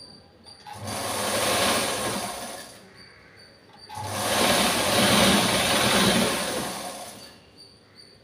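Black domestic sewing machine stitching a seam in two runs of about two and three seconds, with a short pause between them while the cloth is repositioned.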